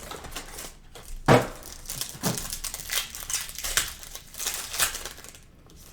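Plastic wrapping on trading-card packs crinkling and tearing as it is ripped open by hand, in irregular crackles with a few louder rips.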